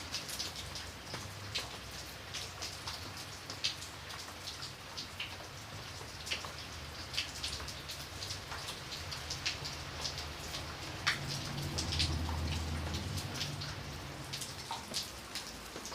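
Steady rain falling, with many separate drops striking sharply and close at hand. A low rumble swells briefly about twelve seconds in.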